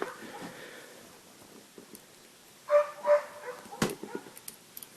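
Two short whining calls from an animal about three seconds in, followed by a few sharp clicks.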